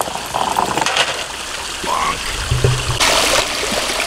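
Water running and trickling steadily through a small rocky pond stream, briefly louder about three seconds in.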